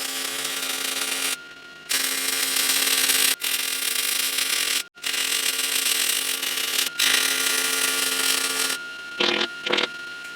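MIG welder arc running on steel, a steady loud crackle with a buzzing hum under it, in several beads of one to two seconds broken by short stops.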